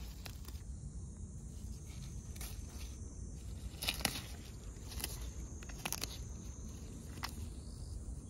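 Scattered small clicks and rustles of a hand handling fig tree leaves and shoots, the sharpest pair about four seconds in, over a low steady rumble.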